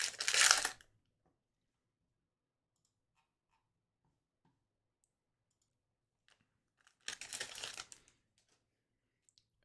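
Crinkling and tearing of a foil hockey-card pack wrapper being opened and handled, in two short spells about a second long: one right at the start and another about seven seconds in, with silence between.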